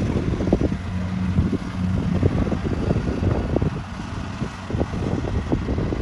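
Kubota combine harvester's diesel engine running steadily as it cuts and threshes rice, a low hum with irregular low thuds over it.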